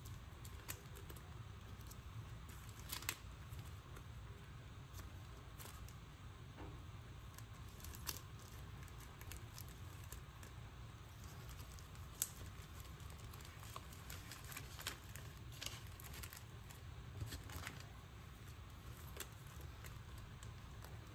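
Clear plastic sticker-pack sleeves crinkling and clicking as they are handled and shuffled, in scattered short crackles and taps over a steady low hum.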